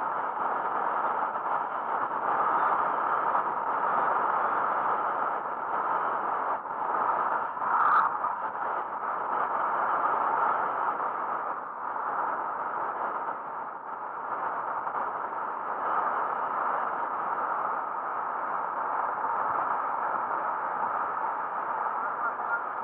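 Steady rushing wind and tyre noise from a road bicycle riding along in a group, with a brief rising squeak about eight seconds in.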